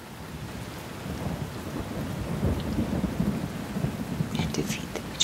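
Rain hissing steadily with rolling thunder that swells about a second in, then sharp crackles near the end and a loud crack at the very end.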